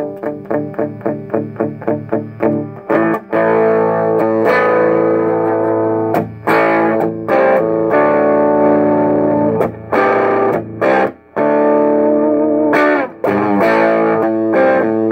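Electric guitar, a Gibson Les Paul, played through the small KNOX Tremtone combo amp with a gritty, lightly distorted tone: a quick run of rapidly repeated strums for about the first three seconds, then ringing strummed chords with a few short breaks.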